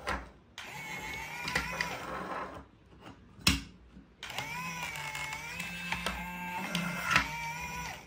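Small electric gear motors of a remote-control toy excavator whirring as its arm moves, with a whine that rises and falls in pitch. The motors stop for about a second and a half midway, with a single sharp click in the pause.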